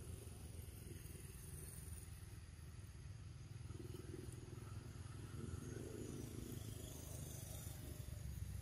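Faint, steady low rumble of outdoor background noise.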